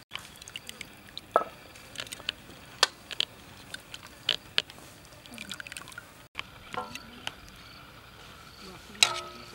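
Metal tongs clicking against a metal pot and a steel bowl as boiled chicken pieces are lifted out of broth, with broth dripping and splashing off the meat. The clicks come in scattered single strikes, and one near the end rings on briefly.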